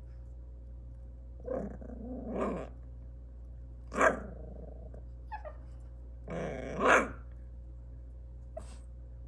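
Maltese puppy growling and giving short barks: a growl about a second and a half in, a sharp bark at about four seconds, and another growl that ends in a louder bark near seven seconds.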